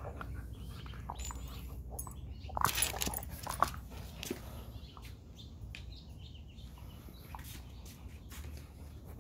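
Alaskan husky mouthing and chewing a ball, with a cluster of short, sharp clicks and squeaks about two and a half to four seconds in, then quieter scattered clicks.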